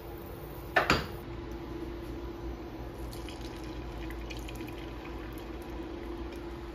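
A sharp knock about a second in, like a wooden pepper mill set down on a wooden counter, then beaten egg poured from a bowl into a small cast-iron skillet, with faint drips over a steady hum.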